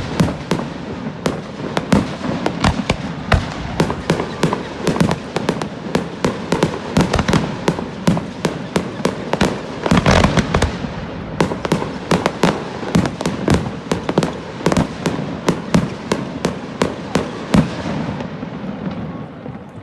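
Fireworks display: a rapid barrage of bangs, several a second, loudest about halfway through, then thinning out and stopping shortly before the end, leaving a fading rumble.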